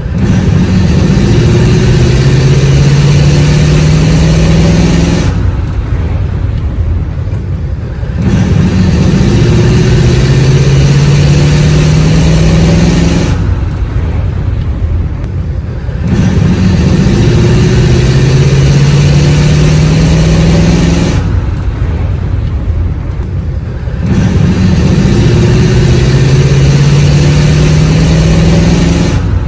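Engine of a 1939 car driving, pulling with its pitch slowly rising for about five seconds, then dropping to a quieter rumble for about three seconds before pulling again; this happens four times.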